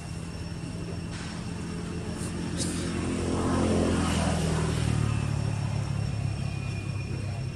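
A motor engine passing by: its drone swells to a peak about four seconds in, then fades as its pitch slides down.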